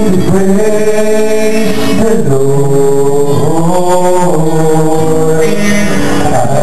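Live gospel song: a male vocal group singing with band accompaniment, holding long notes.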